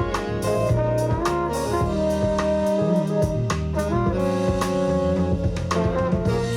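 Recorded jazz playing back: horn lines over busy drum kit strikes.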